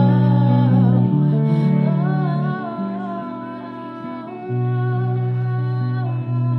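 Live music: a woman singing long, wavering held notes over a sustained electric guitar, with no drums.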